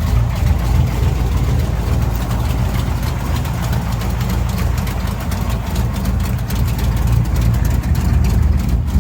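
1967 Chevrolet Chevelle Malibu's V8 idling with a choppy, lumpy beat, a steady low exhaust rumble that holds without revving.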